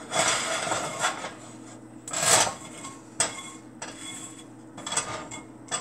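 Plastic spatula scraping and rubbing across the bottom of a greasy nonstick frying pan in several strokes, the loudest about two seconds in.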